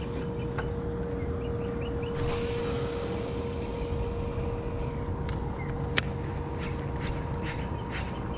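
A boat motor running steadily: a low rumble with a steady whine over it. A few sharp clicks cut through, the loudest about six seconds in.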